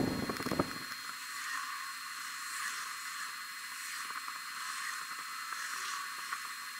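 Faint steady hiss, with a few soft handling clicks in the first second.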